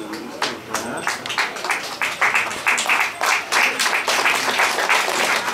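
Audience applause: a few scattered claps at first, building into fuller clapping about two seconds in.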